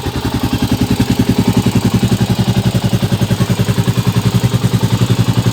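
Motorstar Cafe 400 motorcycle engine idling during a warm-up, running with a steady, even beat of about ten pulses a second.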